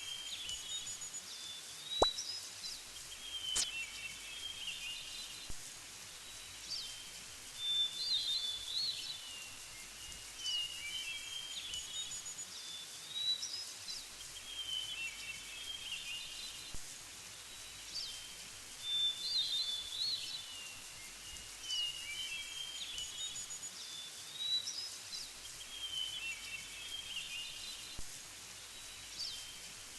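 Bird calls: short chirping phrases repeated every two to three seconds over a steady outdoor background hiss, with a couple of faint clicks near the start.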